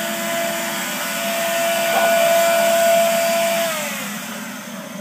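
Electric blower forcing air into a coal forge: a steady motor whine over rushing air. Near the end the whine drops in pitch and the sound fades as the blower slows down.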